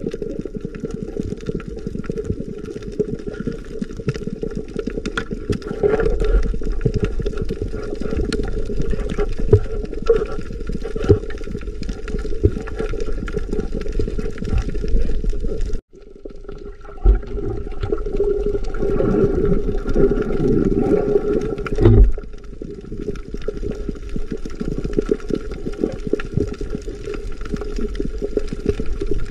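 Muffled underwater sound picked up by a submerged camera on a coral reef: a steady low hum and rumble of water with many scattered clicks and knocks. It drops out briefly about halfway through, and a louder swirling stretch a few seconds later ends in a knock.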